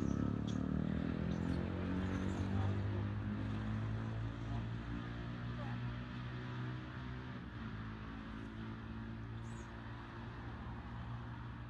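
A motor vehicle's engine running with a steady low hum that slowly fades away.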